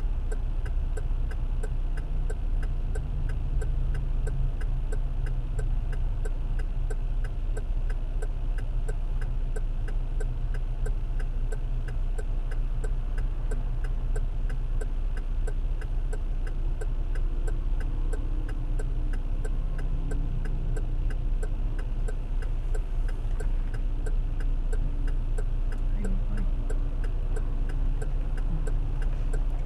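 Car turn-signal indicator ticking at an even, steady rate over the low hum of the engine idling with the vehicle stopped.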